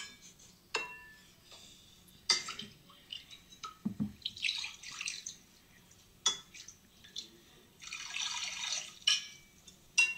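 A metal ladle clinking against ceramic bowls, with sharp clinks and two short stretches of liquid splashing as it scoops.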